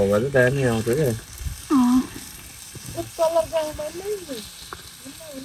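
Marinated pork sizzling on a stone slab heated over a wood fire, a steady hiss throughout. A person's voice comes and goes over it, loudest in the first second.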